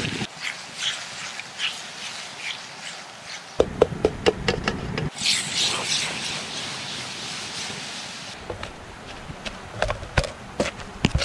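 Camp cooking in quick cuts: food sizzling in a wok over a gas burner, with a high hiss in the middle, and sharp knocks and scrapes of a wooden stick working in a metal pot, stirring and mashing cooked kumara.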